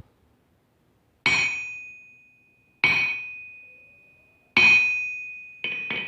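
A hammer striking a steel anvil three times, about a second and a half apart, each blow leaving a high bell-like ring that slowly fades, then two quicker blows near the end. This ring is the anvil's own tone, which firm fixing to its stump is meant to damp.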